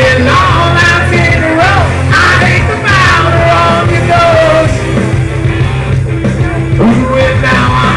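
A man singing karaoke into a microphone over a loud rock backing track.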